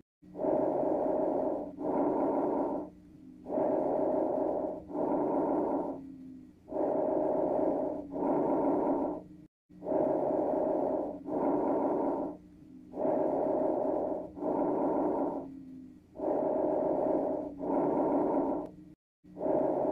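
Recorded lung sounds from chest auscultation: breaths repeating, each an inhalation and an exhalation of about a second apiece, a new breath roughly every three seconds. The recording loops, with a short break about every nine and a half seconds.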